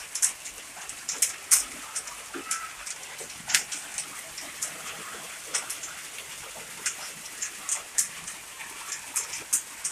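Hailstorm with heavy rain: a steady hiss of rain with hailstones striking nearby hard surfaces in many sharp, irregular clicks.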